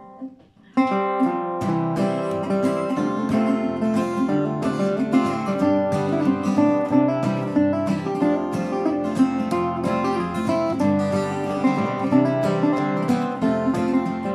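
A resonator guitar and a steel-string acoustic guitar playing a tune together, with many quick picked notes over chords. The playing starts about a second in.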